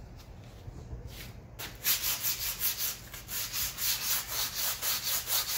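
Sandpaper scraping by hand over the rusty steel bead seat of a tractor wheel rim, taking off rust and build-up. Quick back-and-forth strokes, about three a second, faint at first and much louder from about a second and a half in.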